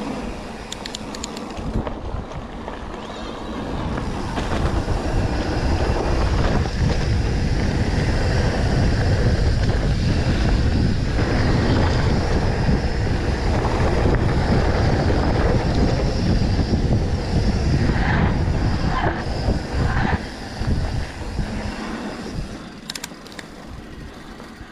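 Mountain bike riding a dirt trail: a steady rush of wind on the microphone and the rumble and rattle of the tyres and bike over the ground, growing louder about four seconds in and easing near the end, with a few knocks toward the end.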